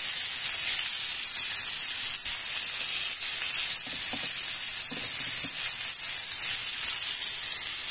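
Flour-dredged zander (pike-perch) pieces frying in hot oil in a pan: a steady sizzle, strongest in the high hiss.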